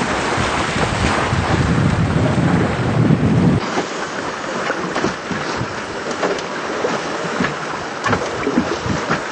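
Wind buffeting the microphone over the hiss of water rushing past a small sailboat's hull while it sails. About three and a half seconds in, the heavy wind rumble cuts out abruptly, leaving the water hiss with scattered small crackles and ticks.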